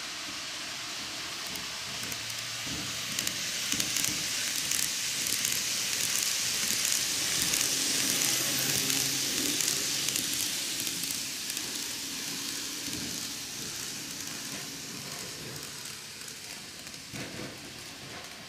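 N-gauge model train running on track, a ten-car Tokyu 5000 series: wheels and motor make a steady hiss with faint light clicks, swelling as the train passes close in the middle and fading toward the end.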